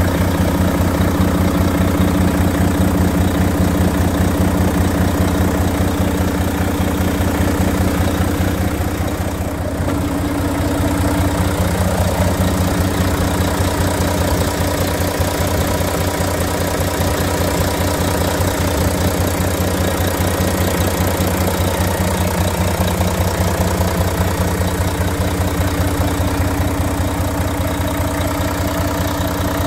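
Volvo FM 500's 13-litre straight-six diesel engine idling steadily, heard close up from the open engine bay.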